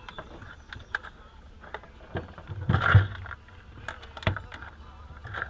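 Irregular clicks and knocks of handling, with a louder rattling clatter about three seconds in and a sharp knock about a second later.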